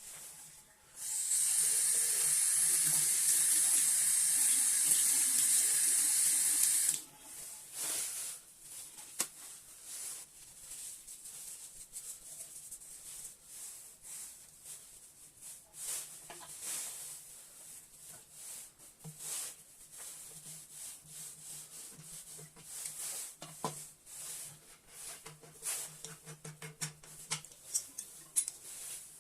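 Water tap running into a sink for about six seconds, then shut off abruptly. After it, scattered light clicks and knocks.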